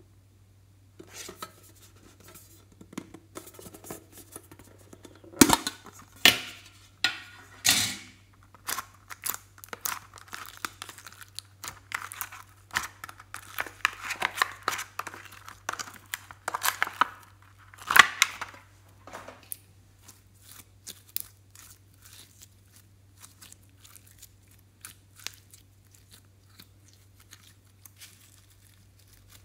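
Sticky glitter slime being pulled and peeled out of a metal tin by hand, a dense run of small crackles and tearing pops, with a few sharp knocks from the tin. The crackles thin out and grow fainter in the last third.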